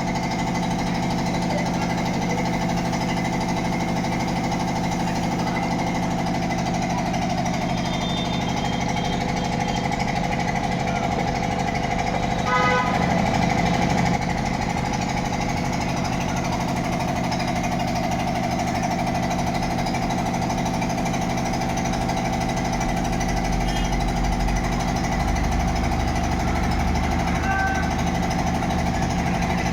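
A machine running steadily with an even hum, briefly a little louder about halfway through.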